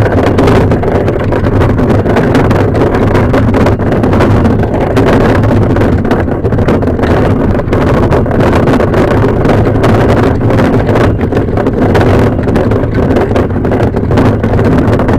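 Loud, steady rumbling noise with a low hum underneath, unbroken throughout.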